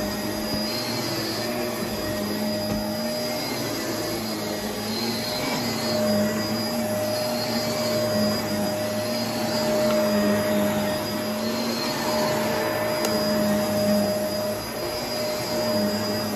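Upright vacuum cleaner running on carpet: a steady motor hum and airflow rush, its pitch wavering slightly every second or so as it is pushed back and forth.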